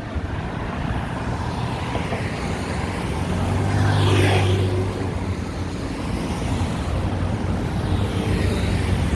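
Road traffic, with a motor vehicle's engine passing close by: it swells to a peak about four seconds in and fades, and another vehicle passes more faintly near the end.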